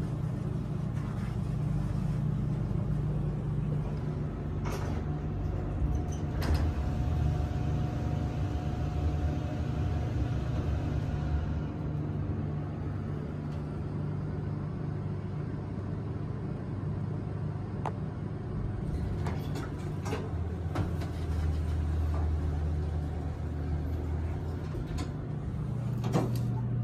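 Passenger elevator running through a ride: a steady low hum from the car as it travels, with a held whine for a few seconds and scattered clicks and knocks as the doors slide shut and later open again.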